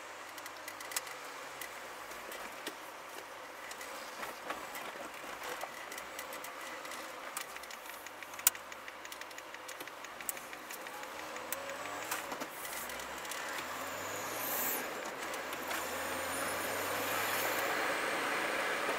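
Car interior running noise as the car pulls out and gathers speed: engine and road noise growing louder, with the engine note rising in pitch partway through. Scattered small clicks and rattles run through it, with one sharp click about eight seconds in.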